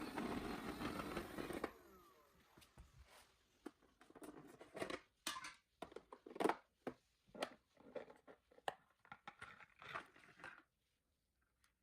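Robot vacuum cleaner running with a steady whir that cuts off suddenly under two seconds in. Then comes a string of irregular clicks, knocks and crinkling noises that stop shortly before the end.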